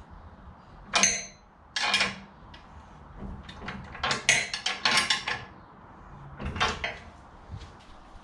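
A wrench tightening a bolt through a steel crossbar and wooden board, clinking and clattering against the metal in a few short bursts, with a quicker run of clicks about four to five seconds in.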